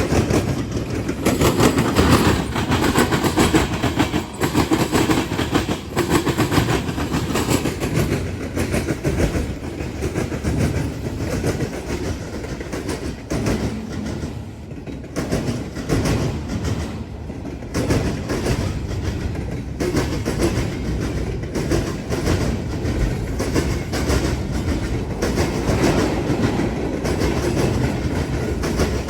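Freight train rolling across a railroad diamond crossing, its wheels banging over the crossing gaps in a continuous rapid clatter.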